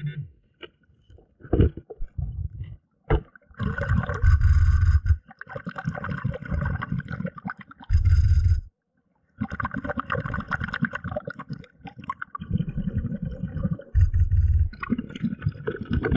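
Underwater noise on a gravel and rock pond bottom: rumbling, gurgling bursts of water movement and scraping of stones, with a few sharp clicks in the first seconds.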